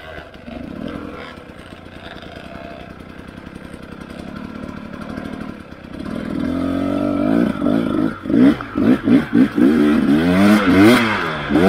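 Dirt bike engine ticking over quietly, then from about halfway through revving up and down in quick repeated throttle bursts as the bike is ridden up a slope.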